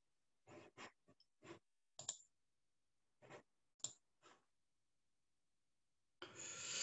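Faint scattered clicks, about nine over the first four seconds, from the computer being operated to get the slideshow back. Near the end there is a short breathy rush of noise.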